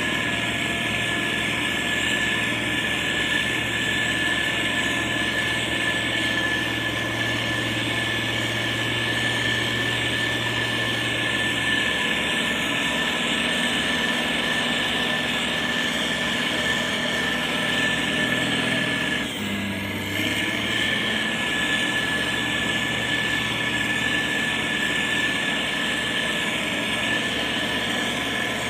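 Motor grader's diesel engine running steadily, with a steady high whine above it; the engine note briefly dips and shifts about two-thirds of the way through.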